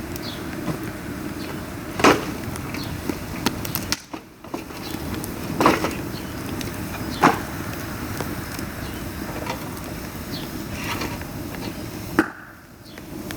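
Dry bamboo burning in a pail-can fire with a steady rushing, broken by four sharp cracks.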